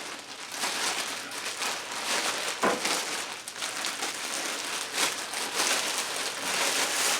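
Plastic packaging crinkling and crackling as a boxed magnetic drill is pulled out of its bag, a continuous run of small rustles and clicks.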